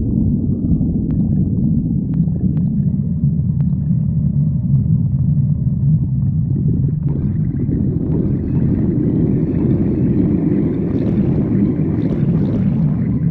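Stomach growling heard close up: a continuous low rumble, joined about halfway through by a higher gurgling growl that carries on to the end.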